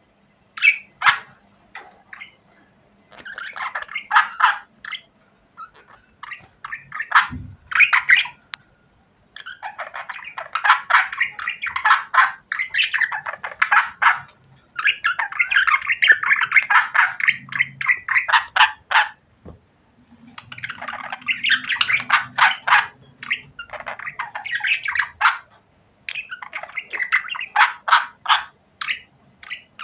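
Several pet budgerigars chattering together: fast, scratchy warbling and squawks in bouts of a few seconds with short pauses between them.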